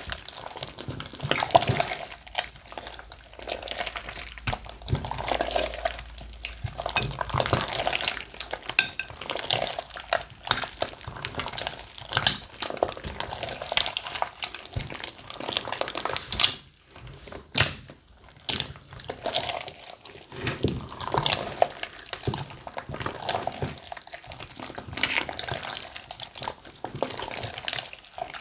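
Slime being mixed and worked, giving a steady run of irregular wet squelches and sticky clicks, with a brief lull a little past halfway.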